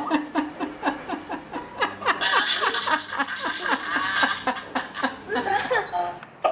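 A group of people laughing together over a Skype video call, heard through the tablet's speaker, in short, rapid, overlapping bursts.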